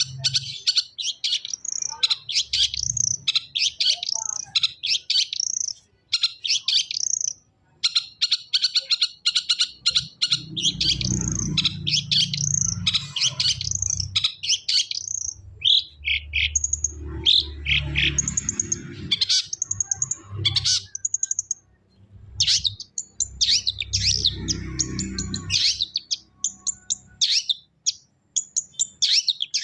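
Long-tailed shrike (cendet) singing a fast, scratchy chatter of quick high notes that sweep upward, broken by short pauses, over a low rumble that comes and goes.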